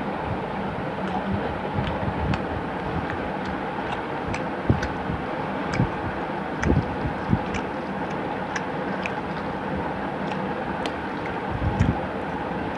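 Eating by hand from a steel plate: small wet clicks and soft thumps as fingers mix and scoop rice and curry, with chewing, over a steady background hum and hiss.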